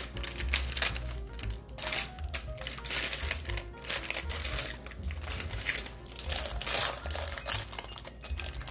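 Silicone spatula scraping and smearing thick brownie batter in a parchment-lined metal baking pan, with irregular wet scrapes, taps and the parchment paper crinkling, over light background music.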